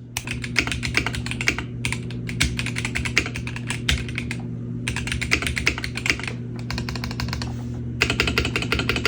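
Rapid typing on a MelGeek Made 68 Hall-effect keyboard with Green Hornet magnetic switches: a dense run of key clicks in bursts, with brief lulls about two, five and eight seconds in.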